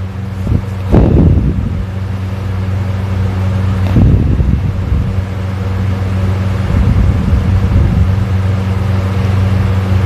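A sleeping person snoring: short, loud breaths come about a second in and again at four seconds, with fainter ones later, over a steady low hum.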